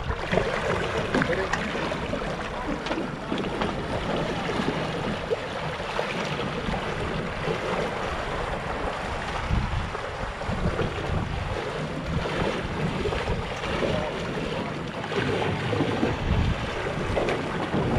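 Shallow seawater splashing and sloshing as several people wade through it pushing a small seaplane, with wind buffeting the microphone.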